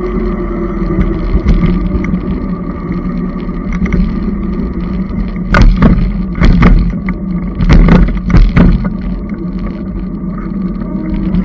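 E-bike riding on pavement: a steady running hum with wind and road noise. About halfway through, a series of four or five loud jolts and rattles as the wheels bump across railroad tracks.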